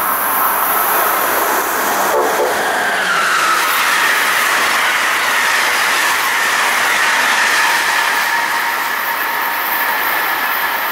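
Amtrak passenger train of Amfleet coaches passing at speed: a loud, steady rush of wheels on rail. A whine drops in pitch about two to three seconds in, then holds steady.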